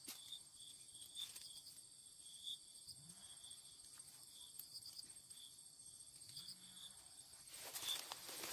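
Near silence with faint insects chirping, a thin steady high tone with small repeating chirps. Near the end a louder, noisy sound rises.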